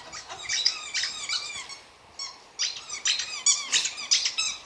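A squeaky toy being chewed by a Field Spaniel, giving many quick, high-pitched squeaks in rapid runs, with a short pause about two seconds in.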